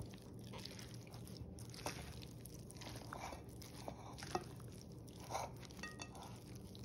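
Spatula folding a creamy-dressed potato salad in a glass bowl: faint soft squishing of the chunks, with occasional light taps and scrapes of the spatula against the glass.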